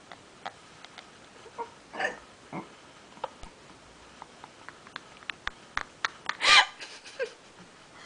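A person's hiccups amid stifled laughter: scattered short, sharp sounds and a few brief voiced catches, the loudest a high, wavering voiced burst about six and a half seconds in.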